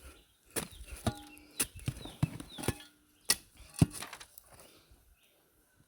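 Soil and dry manure being mixed with a hand tool, giving a run of irregular strikes and scrapes that die away after about four seconds.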